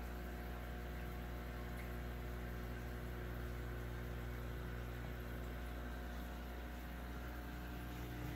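Aquarium equipment running: a steady electrical hum with a faint, even hiss that does not change.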